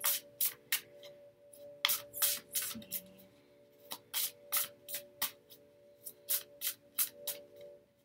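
A deck of oracle cards being shuffled by hand: short, quick swishes of the cards sliding against each other, coming in clusters of a few strokes with brief pauses between.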